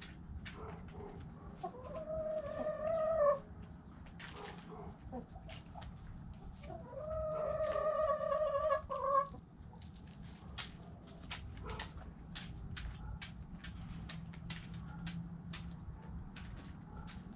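Rooster crowing twice, a held call about two seconds in and a longer one about seven seconds in, with hens clucking and short sharp clicks between.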